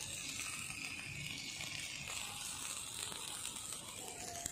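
Chicken tikka pieces sizzling faintly and steadily on a charcoal grill grate.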